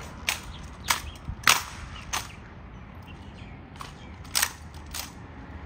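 Honor guard ceremonial drill: about six sharp, hard cracks at uneven intervals, with a few fainter clicks between them. The loudest comes about one and a half seconds in.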